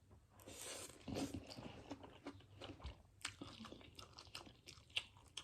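Close-up eating of spicy Korean instant ramen noodles: a mouthful taken in, then chewing with many short, irregular wet clicks.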